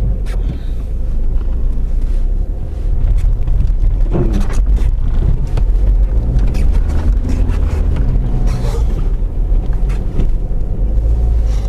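Car being driven on a snowy road: a steady low engine and road rumble from inside the cabin, with scattered light clicks and knocks.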